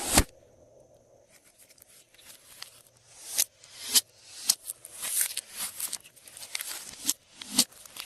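Hands working glossy slime: sticky pops and clicks. There is a sharp click at the start and a couple of quiet seconds, then a string of short pops with crackly swells about every half second.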